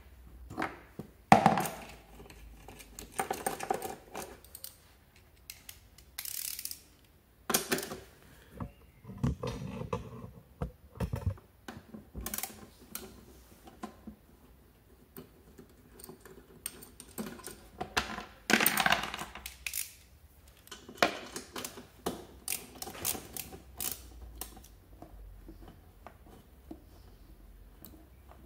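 Hands handling small parts and tools in the plastic under-seat compartment of a Peugeot Vivacity scooter: irregular clicks, taps and light clatter, with a louder scraping rustle about two-thirds of the way through.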